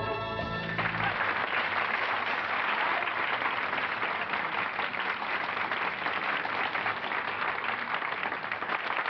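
A held musical chord cuts off under a second in, and an audience applauds steadily.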